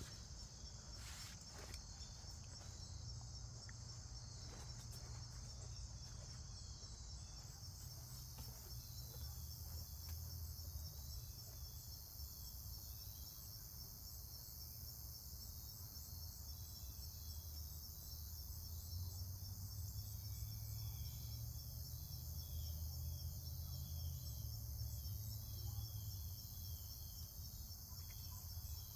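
Steady chorus of insects, a continuous high trill that never pauses, with a second, even higher insect trill joining about seven seconds in. A low rumble runs underneath.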